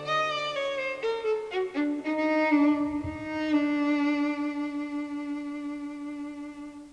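Violin music: a melody played with vibrato, moving through several notes and then holding one long note that grows quieter and fades out near the end.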